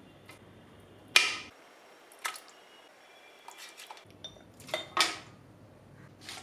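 A few sharp clinks and knocks of a glass bowl and utensils against a large aluminium cooking pot as cooked mutton pieces are tipped in. The loudest clink comes about a second in, a lighter one shortly after, and a cluster around five seconds.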